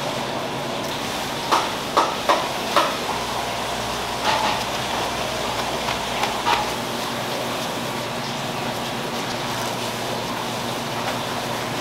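Steady kitchen background noise with a handful of short, light knocks and clatters in the first half, like utensils or dishes being handled.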